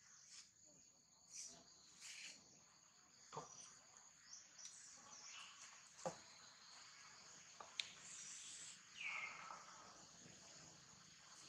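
Faint, steady high-pitched insect drone, with a few soft clicks and a short chirp falling in pitch about nine seconds in.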